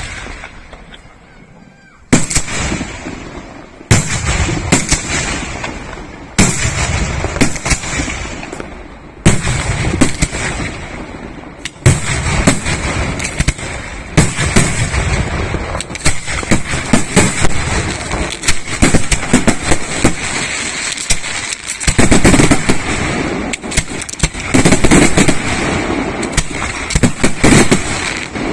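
Aerial fireworks display: shells bursting with loud bangs every two to three seconds, then from about halfway a rapid, nearly continuous volley of bangs.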